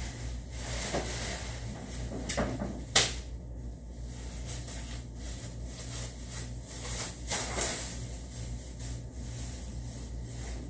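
Scattered knocks, clatters and rustles of a person handling things at an office desk while cleaning, with a sharp click about three seconds in, over a steady low hum.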